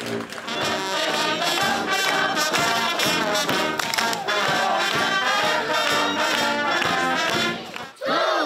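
A brass band playing a lively tune, with tuba and trumpets over a drum beat. About eight seconds in the music cuts off and gives way to a burst of shouting voices.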